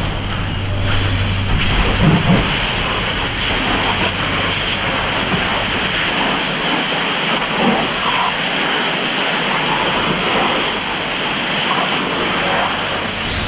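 Fire hose nozzle spraying a water jet onto burning debris: a steady hiss of spray and steam as the water hits the hot wreckage.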